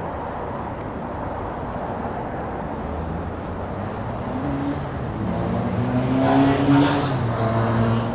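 City street traffic noise; about five seconds in, a nearby motor vehicle's engine note comes in and grows louder, loudest around six to seven seconds.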